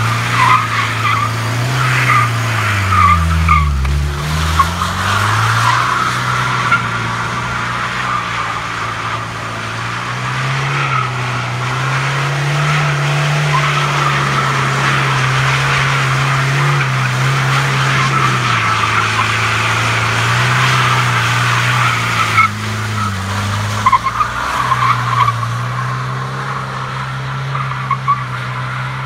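Mercedes 240D's four-cylinder diesel engine running under load while its tyres squeal through long drifts, the engine note dropping and climbing again a few seconds in.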